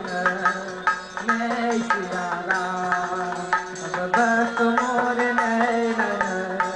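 Live Indian devotional music in an instrumental passage: a sustained melody holding and stepping between notes over frequent hand-drum strokes.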